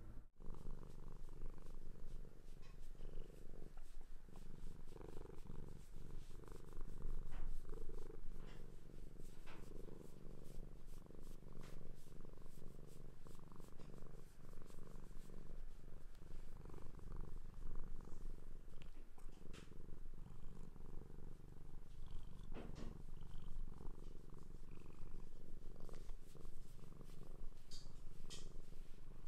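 Cat purring steadily while a hand strokes its head and cheek, with a few faint clicks over the purr.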